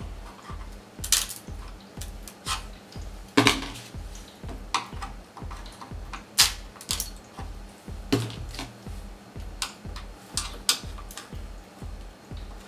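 Irregular small clicks and taps of computer parts being handled, with a few sharper knocks, as the old ROM is taken out of the Amiga 2000 motherboard.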